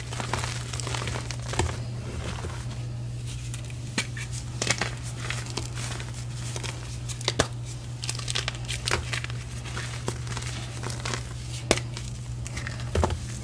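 Reformed gym chalk being crushed and crumbled by hand: dry crunching and crackling of powdery chalk, with several sharp snaps as pieces break apart, over a steady low hum.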